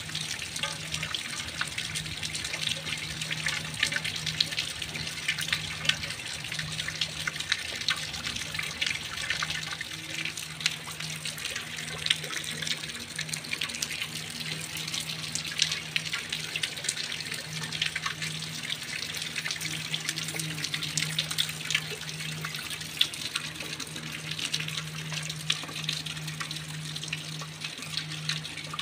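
Heavy rain falling steadily onto waterlogged ground and puddles: a dense, even hiss of countless small drop impacts. A steady low hum runs underneath.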